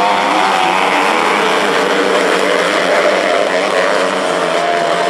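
Engines of several 250cc micro sprint race cars running at high revs on a dirt oval, a steady whine that wavers in pitch.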